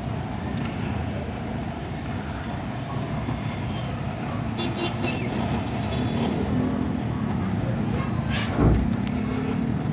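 Steady low rumble of idling traffic at a city intersection while stopped at a red light, with a brief louder swell near the end.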